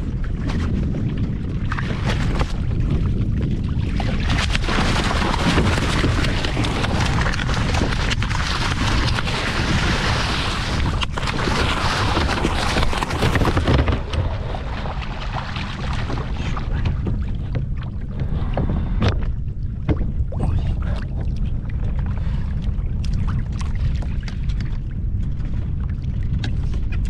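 Water splashing and washing against a kayak hull over a steady rumble of wind on the microphone; the splashing is heaviest for several seconds in the first half, then thins to scattered splashes and knocks.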